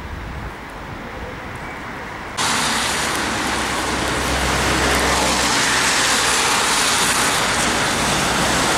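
Steady outdoor street and traffic noise, a broad hiss like tyres on a wet road, which jumps suddenly louder about two and a half seconds in.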